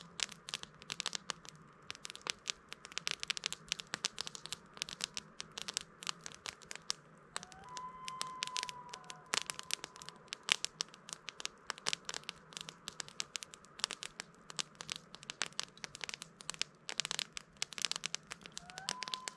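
Campfire crackling, with dense, irregular pops and snaps. About eight seconds in, a faint held whistle-like tone sounds for a second or so.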